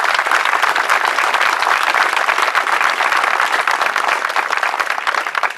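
Audience applauding: dense clapping from a large crowd, easing off near the end.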